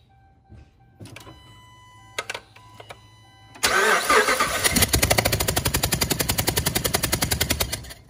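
Starter cranking a 5.7 Hemi V8 over for about four seconds without it starting, beginning about three and a half seconds in, as a rapid, even pulsing that cuts off suddenly. This is a compression test, and the tested cylinder shows zero compression on the gauge: a sign of a bent or burnt valve or a holed piston, as the mechanic reads it.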